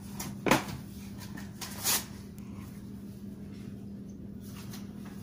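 A sharp knock about half a second in and a short scraping rustle near two seconds: handling noise from the notebook and pencil during drawing. A steady low hum runs underneath.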